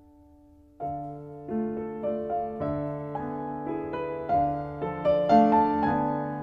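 Slow piano music: a held chord fades almost to nothing, then a new phrase begins about a second in, a gentle melody over chords.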